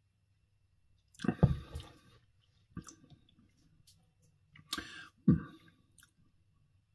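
Wet mouth sounds of a man tasting a mouthful of lager: swallowing, lip smacks and tongue clicks, in about four short bursts, the loudest a little after a second in.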